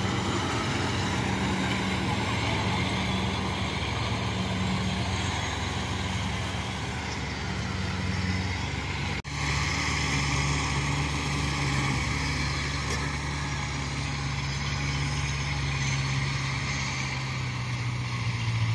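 Kubota DC-70 Plus combine harvester's diesel engine running steadily. About nine seconds in, the sound drops out for a moment and comes back as the steady engine of a small tracked rice carrier, a little different in pitch.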